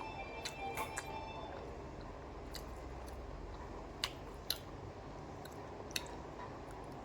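A person chewing and eating pasta, close up, with a few sharp mouth clicks or smacks.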